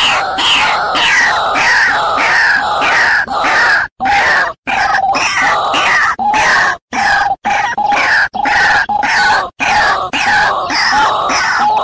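White-breasted waterhen (ruak-ruak) lure call: a loud chorus of harsh repeated calls, about two a second, each with a falling note, with a few brief silent breaks. It is the call played to draw waterhens in for trapping.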